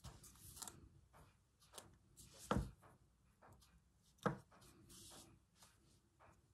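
Quiet hand-sewing sounds: a needle and thread worked through fabric wrapped around a cotton reel, with a soft rustle as the thread is drawn through. Two sharper taps, about two and a half and four and a quarter seconds in, are the loudest sounds.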